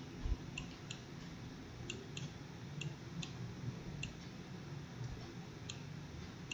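Faint, irregular light clicks, about ten in all, made while a cube is drawn line by line on a screen with a digital pen.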